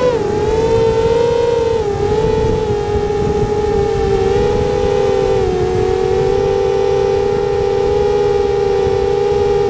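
Motors and propellers of a 7-inch FPV quadcopter in flight, a loud, steady whine. Its pitch steps down slightly a few times and then holds.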